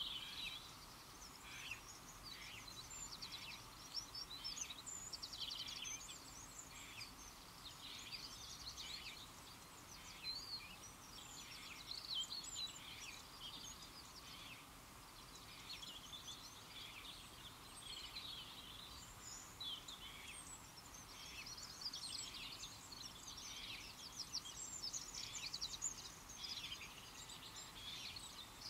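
Small birds chirping and singing without a break, many calls overlapping at once, over a faint steady background noise.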